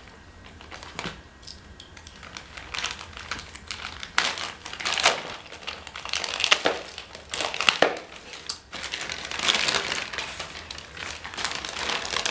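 Product packaging crinkling and rustling as it is handled by hand, in uneven bursts of crackling with short pauses between.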